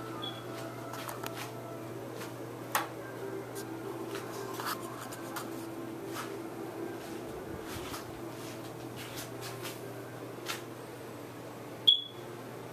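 Steady low electrical hum of a quiet room, with scattered small clicks and rubbing. Near the end comes one sharp click together with a brief high beep.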